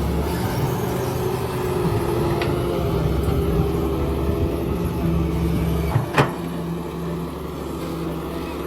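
A heavy engine runs steadily with a low rumble, and a single sharp bang comes about six seconds in.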